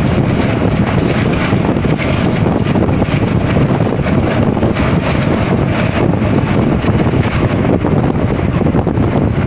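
Indian Railways passenger train running at speed, recorded with the phone held outside the coach: a steady rumble of the wheels on the track with heavy wind buffeting the microphone.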